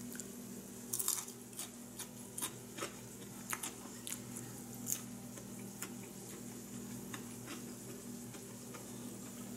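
A person biting and chewing crisp tempura-battered fried squash, with scattered small crunches and mouth clicks over a steady low hum.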